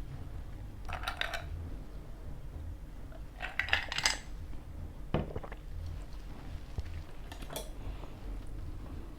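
Cutlery and dishes clinking in a few short clusters of clicks, the loudest about four seconds in, over a steady low hum.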